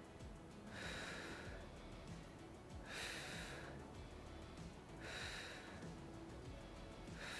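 A person breathing close to the microphone during light exercise. There are about four breaths, each under a second long, evenly spaced about two seconds apart.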